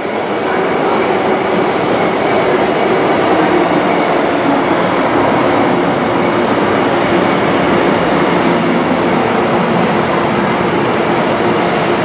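MTR underground electric train running through the station without stopping, heard past the platform screen doors: a loud, steady rumble of wheels and running gear with a few steady tones, building over the first second and then holding level.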